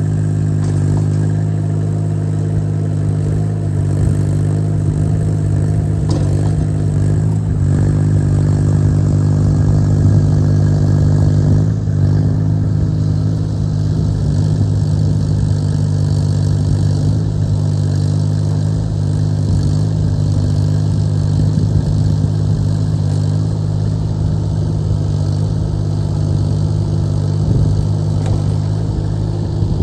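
Carter CT12BU 1.4-tonne mini excavator's Yanmar diesel engine running at steady working revs, with a few knocks about six, seven and a half and twelve seconds in.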